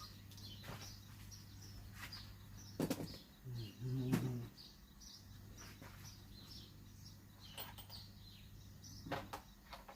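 Small birds chirping over and over in short high notes, two or three a second. A few sharp knocks come about three seconds in and again near the end, and a brief low sound around four seconds in is the loudest thing.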